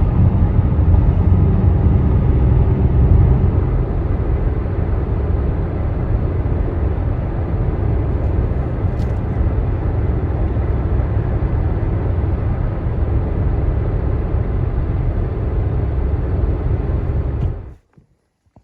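Steady low rumble of a moving vehicle, easing slightly about four seconds in and cutting off abruptly near the end.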